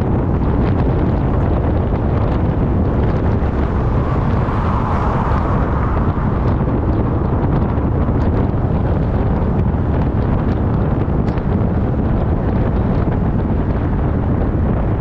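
Wind buffeting the microphone over the steady rumble of a car on the move. A brief swell of higher hiss comes about four to six seconds in.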